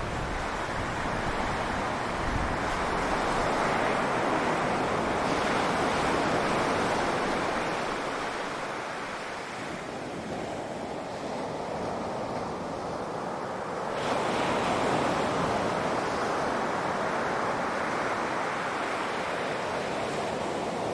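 Sea surf washing onto a beach: a continuous rush of breaking waves that swells, eases off in the middle, and builds again about two-thirds of the way through.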